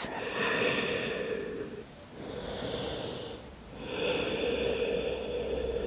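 A woman breathing audibly in a yoga forward fold: a long breath out, a shorter, higher breath in about two seconds in, then another long breath out from about four seconds in.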